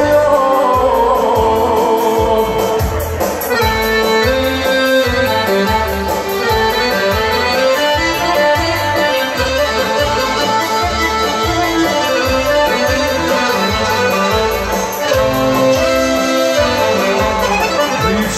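Loud Serbian folk dance music led by accordion, over a steady driving beat.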